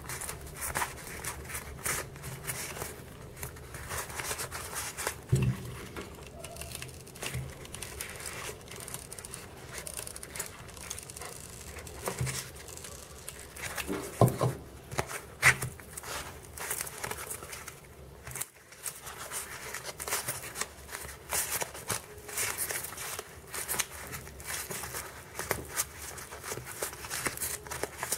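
EVA foam sheet being pressed and rubbed by hand over a foam half-ball: irregular crinkling and crackling rubs, with a few louder small knocks.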